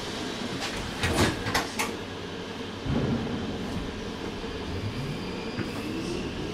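VBZ Flexity tram: a few clatters and a thump, then the electric traction drive's whine rising steadily in pitch as the tram picks up speed.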